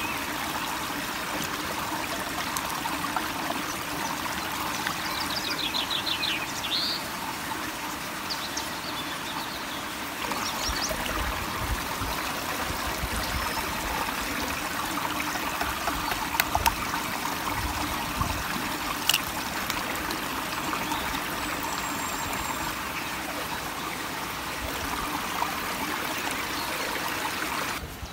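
Small mountain stream running over rocks, a steady rush of water, with a few faint clicks and low bumps partway through.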